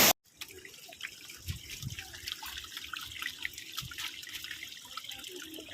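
A loud waterfall rush cuts off abruptly at the start, followed by quieter water dripping and trickling in many small scattered drops, with a few soft low knocks.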